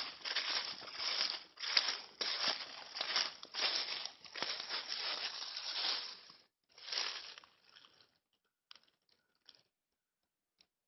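Irregular crunching and rustling noise for about six seconds, then a short burst and a few faint clicks.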